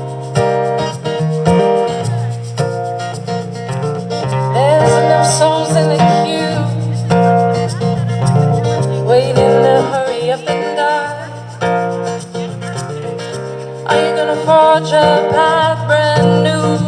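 Live acoustic guitar music: strummed chords over a steady bass line, with a sliding melody line coming in and out over them.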